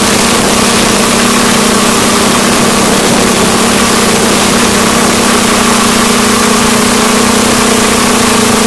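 Hexcopter's electric motors and propellers running in flight: a loud, steady whine over an even rushing hiss, holding one pitch.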